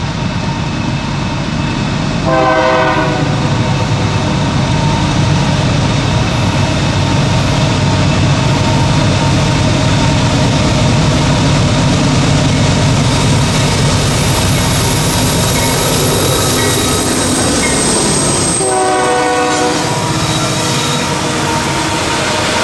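Diesel freight train running with a steady low rumble, sounding two short horn blasts: one about two seconds in and another late on.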